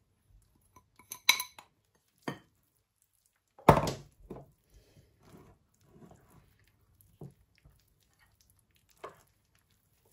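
Metal spoon clinking and scraping against a glass mixing bowl while flour, melted butter and a yeast mixture are stirred into dough. A ringing glass clink a little over a second in, the loudest knock just under four seconds in, then softer scattered taps and scrapes.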